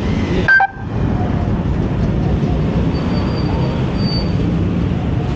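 Steady rumble of motor vehicle engines and road traffic. A brief, loud sound comes about half a second in.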